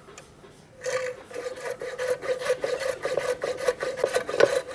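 Coping saw cutting through walrus ivory in quick back-and-forth strokes, several a second, with a steady ringing note, starting about a second in.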